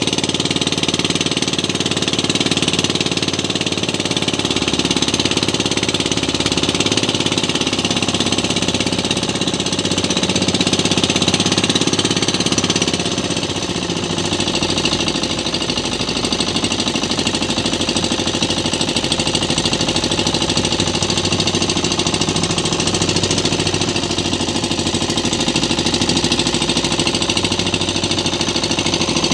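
Outrigger fishing boat's engine running steadily, its note shifting slightly about halfway through.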